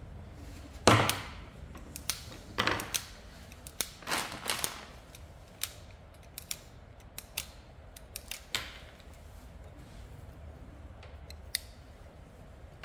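Hand wire stripper clamping and snipping the insulation off electrical wire: a series of sharp clicks and snaps, the loudest about a second in, then lighter ticks.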